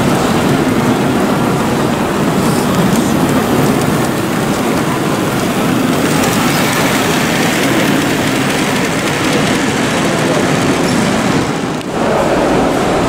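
Model trains running on layout track under the steady din of a busy exhibition hall. The sound dips briefly about twelve seconds in.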